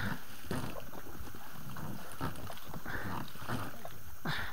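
Inflatable rubber boats being hauled by hand through a boggy channel thick with water plants: a string of short sloshing, rustling rushes, roughly two a second, as the hulls are pulled through the vegetation and water.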